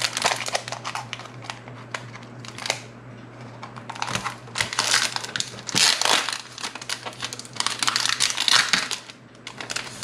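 Clear plastic wrap crinkling and rustling in irregular bursts as it is peeled off a pack of paper planner inserts. It is loudest in the second half.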